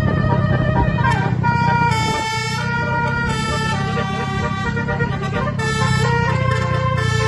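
A bus's basuri 'telolet' horn plays a tune: several air-horn tones sound together and step from note to note every half second or so. Under it runs a steady low engine rumble.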